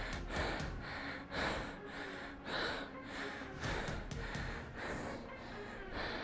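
A man breathing hard and fast through the mouth, quick breaths about twice a second: out of breath from a high-intensity interval.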